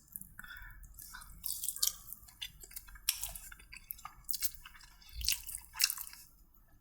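Close-miked eating: a person chewing food with irregular wet mouth clicks and smacks.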